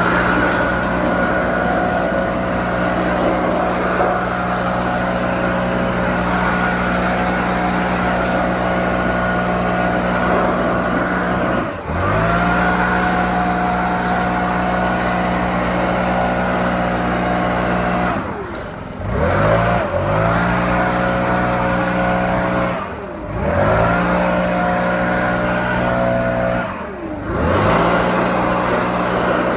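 Stihl BR700 gas backpack blower running at full throttle with a steady high engine note. Four times the throttle is briefly let off and the engine dips, then revs straight back up.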